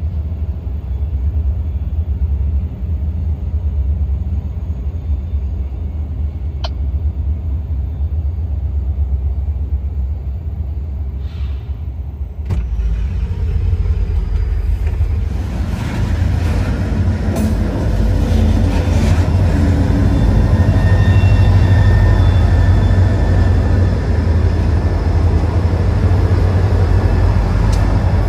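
Low, steady vehicle rumble. A sharp click comes about twelve seconds in, and after it the rumble grows louder and noisier.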